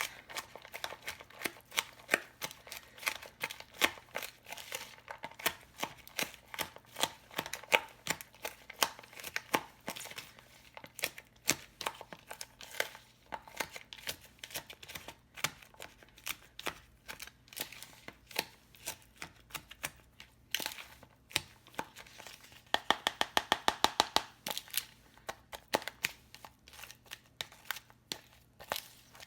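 Shredded cabbage coleslaw mix with mayo being stirred in a bowl, a steady run of crinkly scrapes and clicks from the utensil. About 23 seconds in the stirring turns into a quick, even run of strokes for a couple of seconds.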